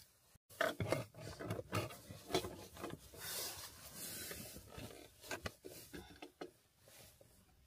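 Quiet handling noises in a car: irregular clicks, knocks and rustling as a 12-volt water-heater jug is set down and its plug is pushed into a portable power station.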